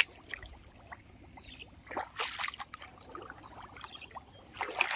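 Footsteps wading through shallow, grassy water: a few irregular splashes and sloshes, the loudest about two seconds in and near the end.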